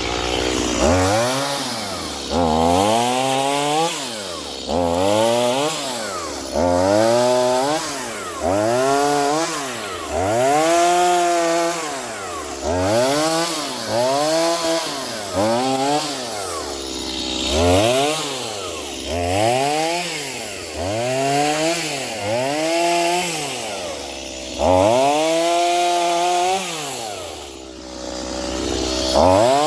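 Stihl MS210 two-stroke chainsaw with an 18-inch bar, cutting wood in repeated passes. The engine pitch rises and falls about every two seconds, some fourteen times, as it is throttled up and pulled down under load in the cut.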